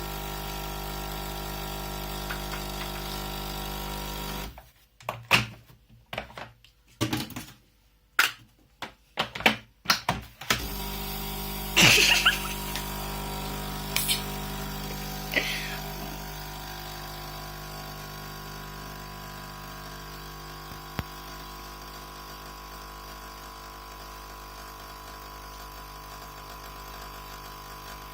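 A metal spoon tapping a cup of hot coffee. There is a run of quick taps about two a second, then a few single taps that ring briefly, over a steady background hum.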